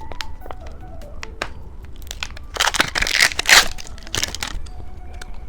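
Plastic candy packaging crinkling and rustling as it is handled and torn open. There are many sharp crackles throughout, and a couple of louder bursts a little past the middle.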